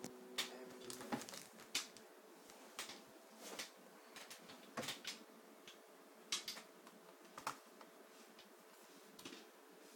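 Faint, irregular clicks and light taps, about a dozen scattered through, over a faint steady hum that stops about a second in.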